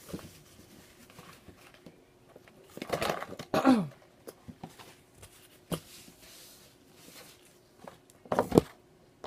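A woman chewing food with small wet mouth clicks and lip smacks. About three seconds in comes a short loud voiced sound from her throat that falls in pitch, and there is another loud mouth sound near the end.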